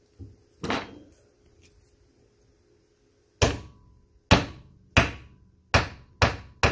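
Hammer driving the pin through a distributor drive gear into its shaft. There are a couple of light knocks in the first second, then six sharp hammer blows from about three and a half seconds in, coming quicker toward the end.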